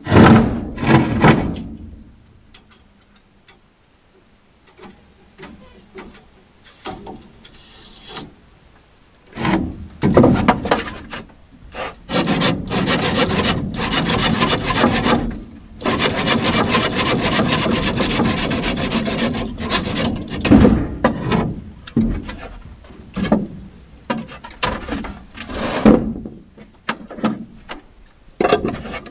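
Hand saw cutting wood in two long spells of rapid back-and-forth strokes, between shorter knocks and scrapes of wood being handled.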